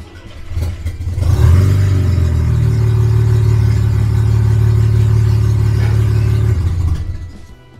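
Mazda RX-7 rotary (Wankel) engine running loud, coming up in speed about a second in, holding steady, then dying away near the end. The owner puts the loudness down to the very short exhaust header.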